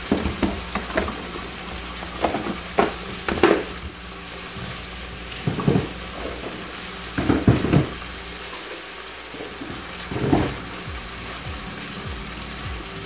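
A spoon stirring sugar into hot water in a metal pot, scraping and knocking against the pot eight or so times, over a steady hiss from the simmering liquid.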